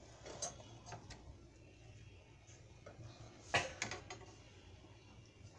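Light clicks and taps of a metal spatula against a flat tawa griddle with a roti on it, a few scattered near the start and a short cluster of sharper clicks about three and a half seconds in.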